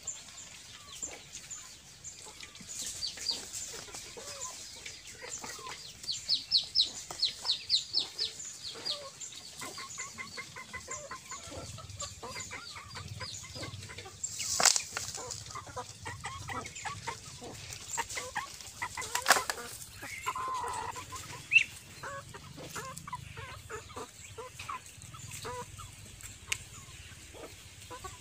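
Chickens clucking, with a run of quick high chirps a few seconds in and a few sharp knocks later on.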